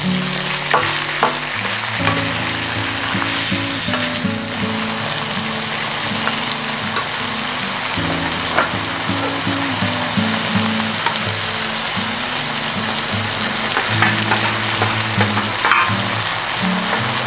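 Chicken and vegetables sizzling in a hot wok as they are stir-fried and turned with a wooden spatula, with a click of the spatula against the pan now and then. Soft background music with held low notes runs underneath.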